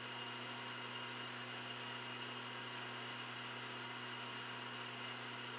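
Logan metal lathe running steadily under power feed, a boring bar taking a light two-thou finishing cut inside a cast iron chuck back plate. Heard as a steady motor hum and whir with a faint high tone above it.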